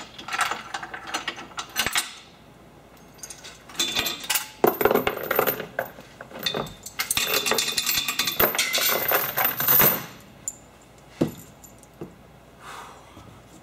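Steel chain rattling and clinking as it is handled, in bursts of dense metallic jangling: one at the start, another about four seconds in, and a longer run from about six and a half to ten seconds.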